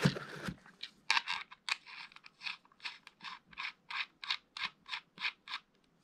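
Aluminium quick-release connector being screwed by hand into a bite alarm's threaded socket: a rapid run of short scratchy clicks, about three or four a second, after a brief rustle as the alarm is lifted from its foam case.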